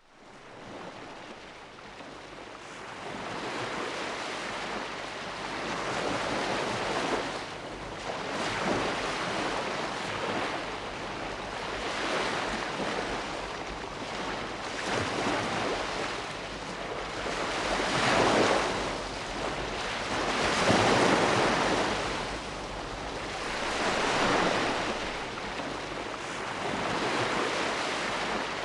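Sea waves washing ashore, a steady rushing surf that swells and ebbs every few seconds, with a couple of louder breaking waves past the middle. It fades in at the very start.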